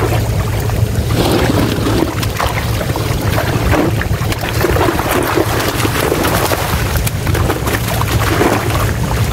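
Netted pond fish thrashing and splashing in shallow water inside a seine net as they are grabbed and tossed into baskets: many short, irregular splashes. A steady low drone and wind on the microphone run underneath.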